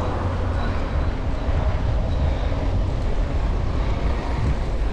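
Steady wind buffeting on the microphone of a bicycle rider, with road traffic beside the bike path underneath: an even rushing noise, heaviest at the low end.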